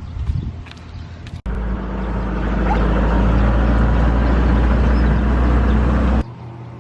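Steady loud rumble of a car on the move: road and wind noise, with a heavy low drone. It starts suddenly about a second and a half in and cuts off sharply near the end. Before it come quieter mixed outdoor sounds with a few clicks.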